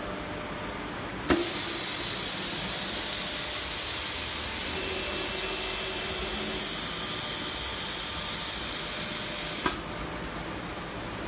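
Compressed air hissing from the automatic-tool-change spindle of a mini 6090 CNC router. A valve clicks about a second in and air blows steadily through the spindle while the tool is released and swapped. It cuts off with a click near the end as the new tool is clamped.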